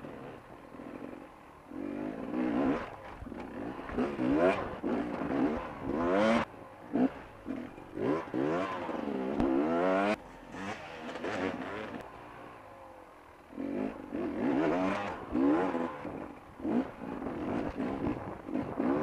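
Beta 250RR two-stroke enduro motorcycle being ridden hard: the engine revs up and drops back again and again as the throttle is worked, with a short lull off the throttle about two-thirds of the way through.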